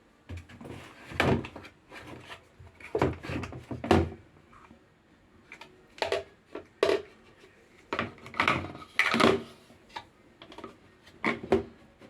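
A series of irregular knocks and clunks from things being handled, about a dozen spread over several seconds, the loudest near the start and in the middle.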